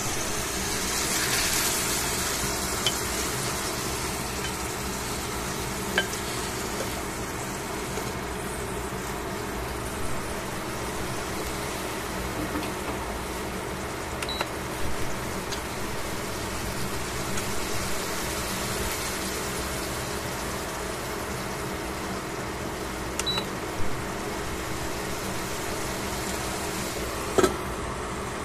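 Beef slices sizzling in a stainless steel frying pan over a steady background hum, with a few sharp clicks of the spatula and tongs against the pan. Near the end a metal pan lid clacks down onto the pan.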